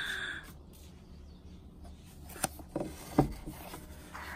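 A paperback book being handled on a glass-topped table: paper rubbing and a few light knocks about two to three seconds in. It opens with the tail of a short, steady high-pitched whine that stops abruptly.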